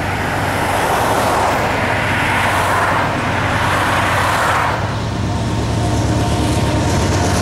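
Road traffic: cars and a pickup truck passing close by, their tyre and engine noise swelling and fading, then dropping away about five seconds in. Underneath runs a steady low rumble that grows stronger near the end as the train's diesel locomotives approach.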